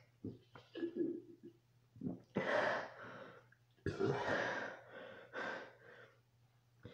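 A person gulping the last of a canned soda, then three loud, heavy gasping breaths about a second and a half apart, out of breath after chugging the whole can.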